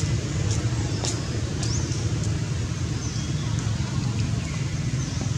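Outdoor background of a steady low rumble, with short high chirps scattered through it.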